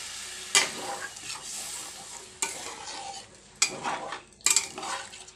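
A metal spatula stirring small potatoes in a watery curry in a metal kadai, scraping and knocking against the pan about five times, over a faint sizzle from the simmering gravy.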